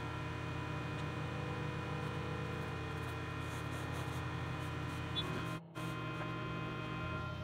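xTool M1 laser cutter running a cut in acrylic: a steady hum with several held tones, dropping out for a moment about five and a half seconds in.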